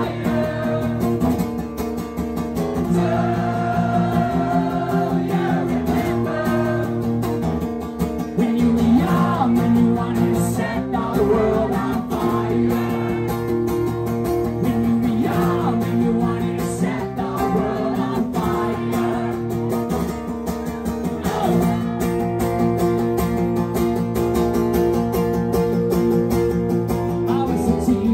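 A live punk song played solo: a woman singing over a strummed acoustic guitar.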